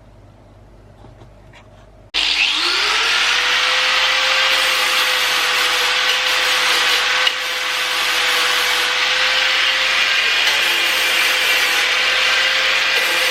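Handheld electric power tool switched on about two seconds in, its motor spinning up to a steady whine, then sanding and abrading paint off the sheet-metal engine bay with a loud, continuous grinding rasp.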